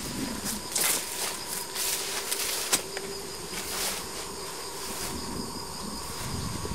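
Insects buzzing steadily, with several brief bursts of noise and one sharp click a little under three seconds in.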